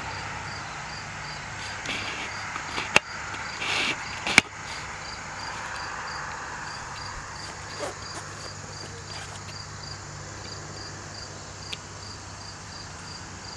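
A field insect, such as a cricket, chirping steadily at a high pitch, about three chirps a second, over a steady outdoor hiss. Two sharp clicks stand out a few seconds in.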